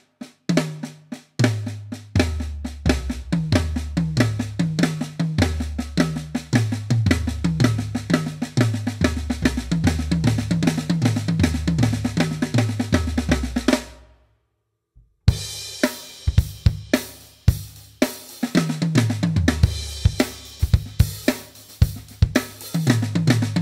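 Acoustic drum kit: the left flam triplet rudiment played around the snare and toms, with the drum pitches stepping down in repeating runs. The playing stops about fourteen seconds in and picks up again after a pause of about a second.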